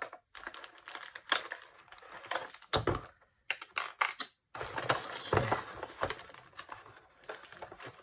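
Plastic clicks, knocks and scraping from a Ring Video Doorbell 3 Plus and its cover being handled and fitted together by hand, with a few sharper snaps among them.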